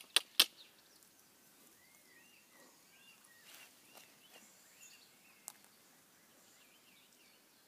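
Two short, sharp sounds in the first half-second, then faint birdsong: scattered short chirps, with one more sharp click about five and a half seconds in.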